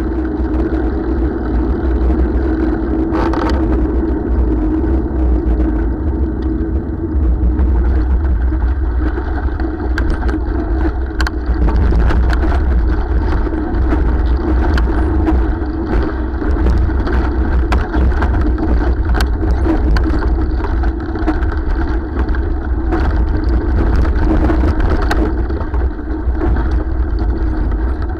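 Riding noise of an older touring bicycle recorded from its handlebars: a steady low rumble of wind and tyres on tarmac, then from about ten seconds in frequent sharp clicks and rattles as the tyres run onto a gravel track.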